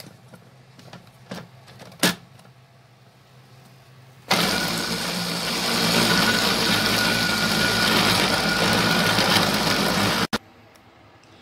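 A few light clicks, then a food processor's chopper motor starts about four seconds in and runs steadily for about six seconds, grinding boneless chicken into fine mince, before cutting off suddenly.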